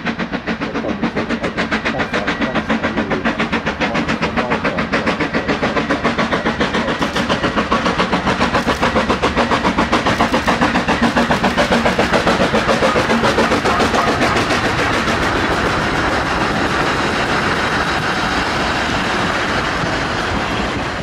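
Narrow-gauge steam locomotive working a train, its exhaust chuffing in a quick, even beat of about four a second. In the last third the beats blur into a steadier rush.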